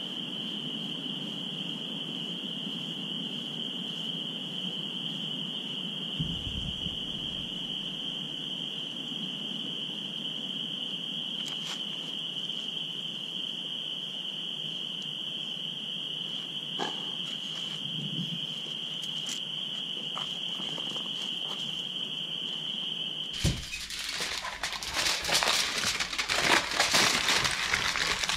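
A steady, high-pitched chorus of frogs calling continuously. About 23 seconds in, this gives way to loud crackling of aluminium foil being crumpled by hand as it is wrapped around food.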